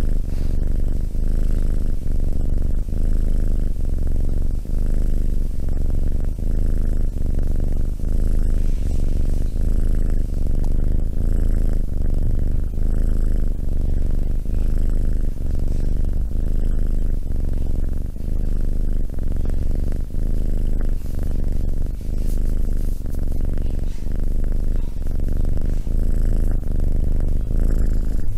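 Tabby kitten purring steadily and loudly into a close microphone, the purr going in an even rhythm with its breaths in and out.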